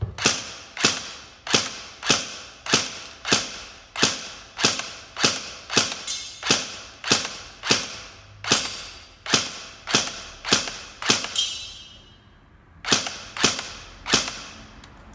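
Airsoft MP5K firing single shots in a steady series, about three every two seconds, with a pause of about a second and a half before a few more shots near the end.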